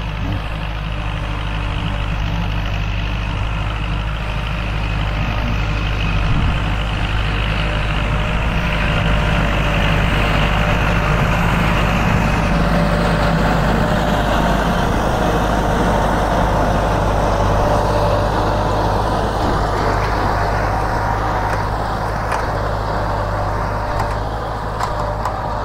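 Kubota L4708 tractor's 47-horsepower four-cylinder diesel engine running steadily under load as it pulls a rear disc ridger through dry soil, pushing earth with its front blade.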